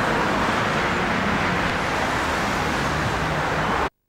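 Steady road-traffic noise, an even hiss with a faint low engine hum of buses and cars, which cuts out abruptly for a moment near the end.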